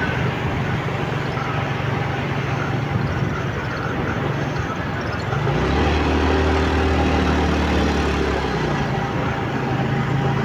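Motorcycle engine running steadily while riding, over a constant rushing road and wind noise. About halfway through a deeper, louder engine note comes in, holds for about three seconds and then falls away.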